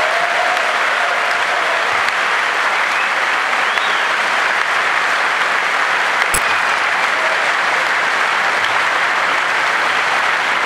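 A large audience applauding steadily, with one sharp knock about six seconds in.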